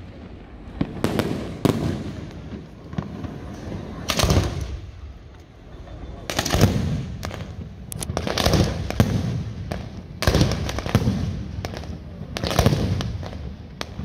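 Fireworks display: about a dozen loud bangs, each ringing on briefly, coming one to two seconds apart, with a short lull around the fifth second.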